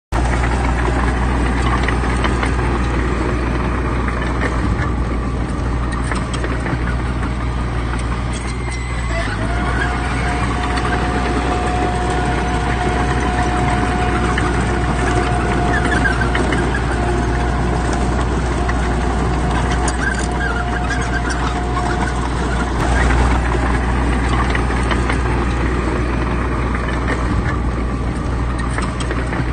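Heavy diesel earthmoving machinery running steadily with a constant low engine drone. A steady high whine joins about a third of the way in and fades out about two-thirds of the way through.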